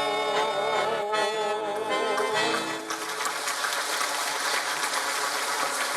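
Accordion playing the closing chords of a folk song, which end about three seconds in. Audience applause follows.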